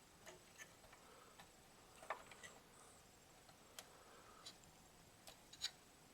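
Faint, scattered clicks and light ticks at irregular intervals against near silence, the sharpest about two seconds in and again near the end.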